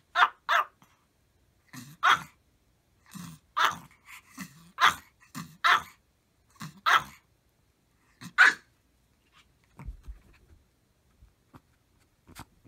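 Maltese barking at the camera: about eight sharp, high barks, some in quick pairs, with short gaps between them. The barking stops about eight and a half seconds in, leaving only faint taps.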